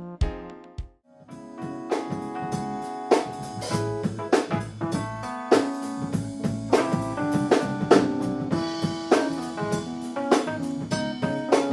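Live instrumental music from a trio of electric keyboard, electric bass and drum kit: after a brief pause about a second in, the keyboard chords, bass line and drum hits come in and run on steadily.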